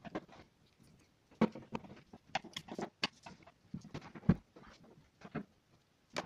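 Irregular clicks and knocks from handling an LED TV's plastic back cover and a screwdriver, with one heavier knock a little after four seconds in and two sharp clicks near the end as the set is turned over.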